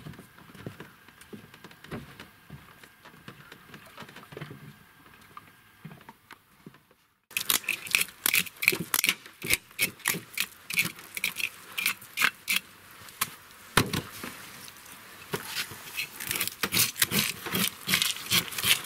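Faint scattered knocks, then, about seven seconds in, a knife scraping scales off a zander on a metal cleaning table in quick repeated strokes.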